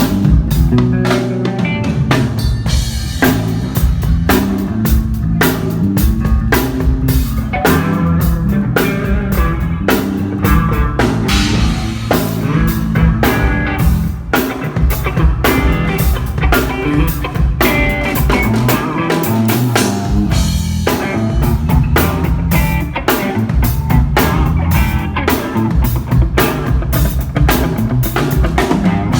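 Band playing live: drum kit and electric guitar over a bass line, with a steady beat of drum hits.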